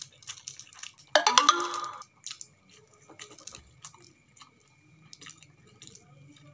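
Faint chewing and the small clicks and crinkles of a plastic cake wrapper being handled. About a second in comes a short, loud pitched tone lasting under a second, the loudest sound here.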